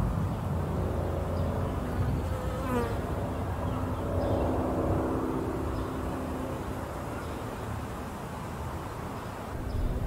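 A flying insect buzzing for a few seconds through the middle, its pitch dipping once as it moves, over the low steady rumble of a thunderstorm. Thunder rumble fades at the start and begins to swell again at the very end.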